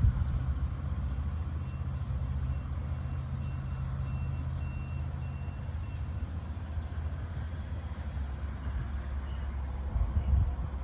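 A motor running steadily with a low hum, one layer of which drops out about six seconds in, under faint insects chirping in pulsed trains.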